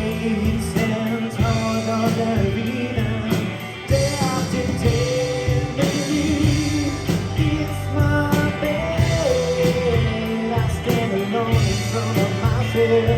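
Live rock trio of electric guitar, bass guitar and drum kit playing an instrumental passage over a steady beat, with a melody line that slides between notes.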